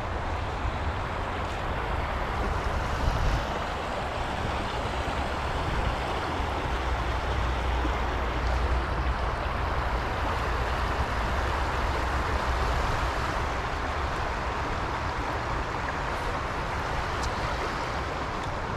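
Steady rushing of flowing stream water, with a low, uneven rumble underneath.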